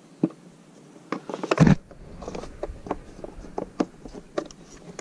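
Hard plastic pressure washer casing being handled: a series of short knocks, clicks and scrapes, with a louder clatter about one and a half seconds in.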